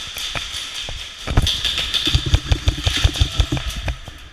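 Airsoft guns firing rapid bursts of shots, roughly eight a second, starting about a second in and running for a couple of seconds.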